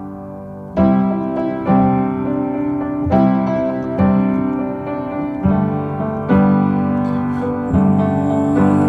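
Background music: a piano playing chords, struck about once a second and fading between strikes, in an instrumental break of a pop song.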